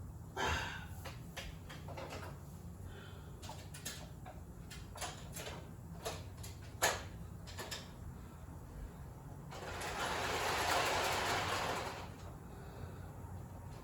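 Scattered light clicks and knocks of model-train pieces being handled, with a sliding, rushing noise lasting a couple of seconds near the end, over a steady low hum.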